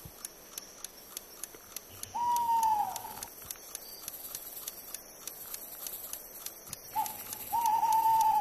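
A clock ticking steadily, about three ticks a second, while a louder drawn-out animal-like call sounds twice: a slightly falling one about two seconds in and a longer wavering one near the end.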